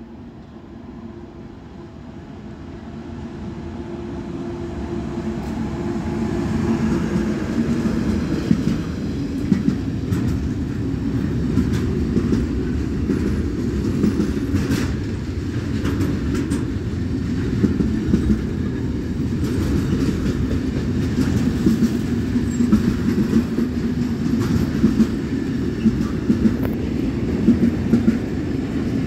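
Freight train of container and tank-container wagons behind a DB Cargo Class 185 electric locomotive, approaching and running past. The rumble grows over the first five or six seconds, then the wagons roll by steadily with the clickety-clack of wheels over rail joints.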